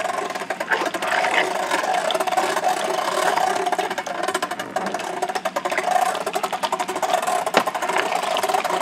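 Hand-cranked tomato food mill being turned, its auger forcing tomatoes through the screen with a steady grinding rattle.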